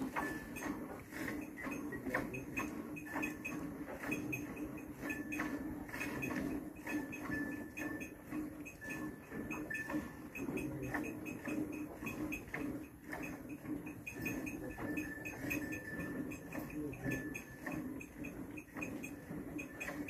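A cow being milked by hand into a steel bucket: streams of milk squirting into the milk already in the pail in a quick, even rhythm, over a steady low hum.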